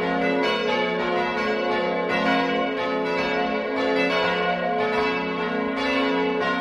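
Church bells ringing, struck again and again at a steady pace, with the tones ringing on and overlapping.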